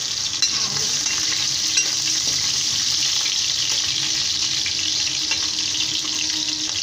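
Chopped green chillies and a dried red chilli sizzling steadily in hot oil in a steel kadhai, stirred with a steel ladle that clicks against the pan a few times.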